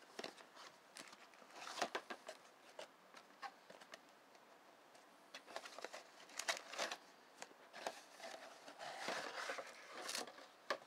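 Cardboard and paper packaging handled as a camera lens box is opened and the lens in its cardboard insert slid out: faint scattered rustles, scrapes and light clicks in bunches, densest a little after nine seconds in.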